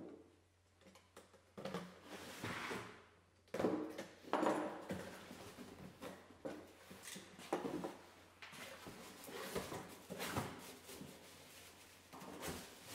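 Cardboard fan box being handled and opened by hand: the flaps scraping and rustling, and the box knocking and sliding on the wooden workbench, with irregular scrapes and a few sharp knocks.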